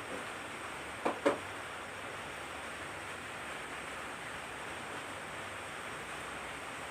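Forest ambience: a steady soft hiss of air and foliage, broken by two short sharp sounds in quick succession just after a second in.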